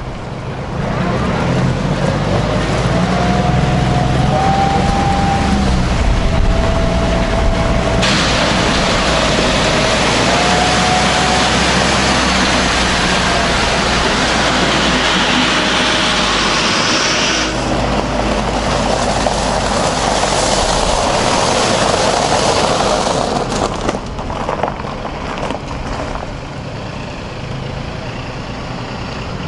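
Compact diesel tractor driving up and past on a gravel drive: engine running with a wavering whine above it, then loud crunching of gravel as it passes close. A car follows, its tyres crunching over the gravel, and the sound drops off a few seconds before the end.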